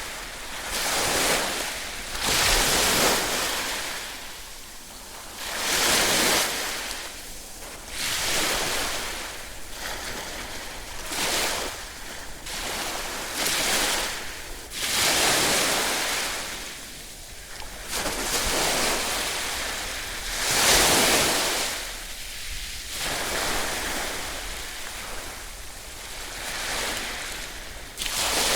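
Ocean waves breaking and washing on a shore, the surf swelling and falling back every two to four seconds, with the loudest surges about three seconds in and again around twenty-one seconds.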